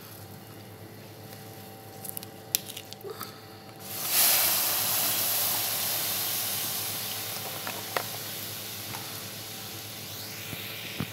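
Cold milk poured into a hot pan of toasted flour and butter sizzles suddenly about four seconds in, a steady hiss that slowly dies away as the roux cools. A few faint clicks come before it.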